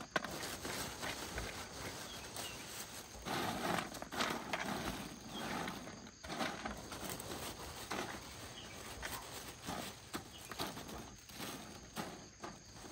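Dry, crunchy puffed rice-and-corn snack sticks being scooped out of a plastic bag and heaped by hand on a metal tray: an irregular rustling with many small clicks.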